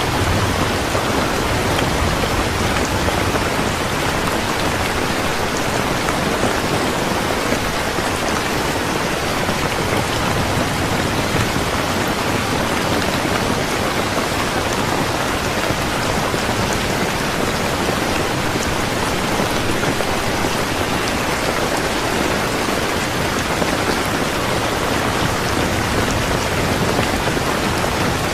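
Steady rain falling on a surface, an even continuous patter with no let-up.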